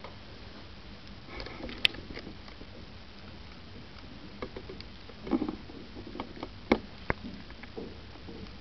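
Steady hiss with scattered small clicks and rustles from a handheld camera being handled. There is a sharp click just under two seconds in, and a cluster of rustles and clicks from about five to seven seconds in.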